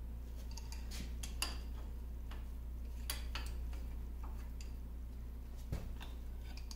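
Scattered light metallic clicks and taps as a wrench is handled and fitted onto a nut on a cast-iron lathe apron, with a duller knock near the end. Under it runs a steady low hum.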